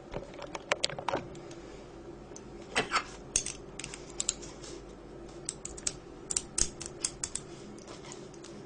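Irregular clusters of light metallic clicks and taps as a Mul-T-Lock cylinder is taken apart by hand, its plug and small telescopic pins and springs knocking against the housing and each other.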